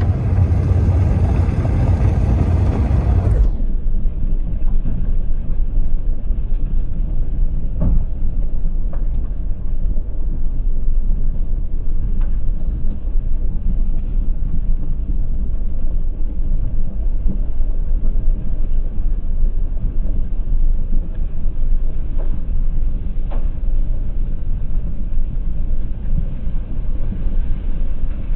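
Strong wind buffeting the microphone: a loud, steady low rumble. About three and a half seconds in the sound turns duller, its hiss cut away, while the rumble goes on.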